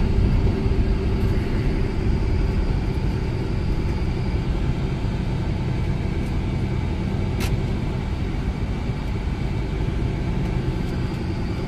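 Steady low rumble of a Scania tractor-trailer's engine and road noise heard inside the cab as the truck drives down a winding mountain grade. A single short click comes about two-thirds of the way through.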